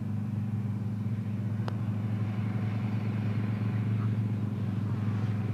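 Golf cart motor running with a steady low hum at an unchanging pitch.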